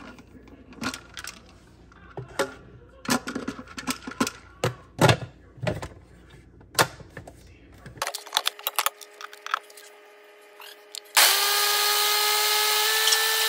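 Clicks and knocks of the Ninja blender's plastic pitcher and lid being handled and locked on. About eleven seconds in, the blender motor starts abruptly and runs steadily, blending a chipotle vinaigrette, its pitch stepping up slightly near the end.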